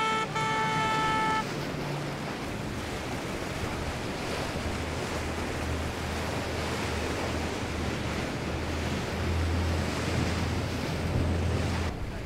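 A boat horn sounding in short toots for about the first second and a half. Then the steady rush of waves, hull spray and wind on the microphone from powerboats running through choppy water, with a low boat-engine drone underneath.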